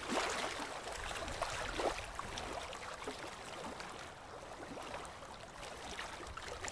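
Faint, steady seaside ambience: a hiss of wind and water.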